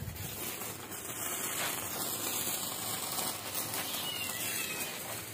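Handheld sparkler burning with a steady fizzing hiss.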